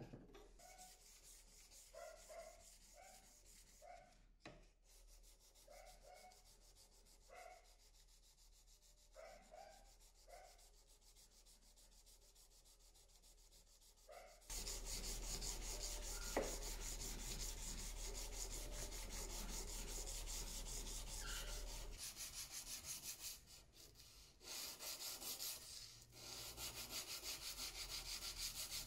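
Hand sanding of a steel knife blade with sandpaper wrapped on a block: quick back-and-forth scratchy rubbing strokes that start about halfway in, pause briefly, then resume. Before the sanding it is quiet apart from a few short faint calls in the background.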